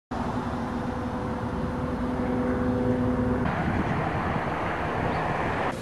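Road traffic: a vehicle engine's steady hum over a low rumble, changing abruptly to a broader rushing noise about three and a half seconds in.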